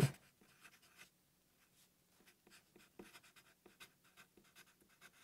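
Felt-tip marker writing on paper: faint, short strokes as a couple of words are handwritten.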